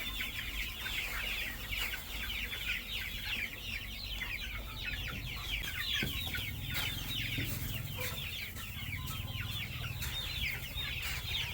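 A flock of 35-day-old chicks peeping continuously: many overlapping short peeps, each falling in pitch.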